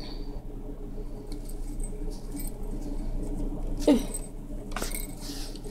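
Hands working yarn close to the microphone: soft rustling and scratching of the knitted toy being handled. A short murmur from the knitter comes about four seconds in, over a steady low hum.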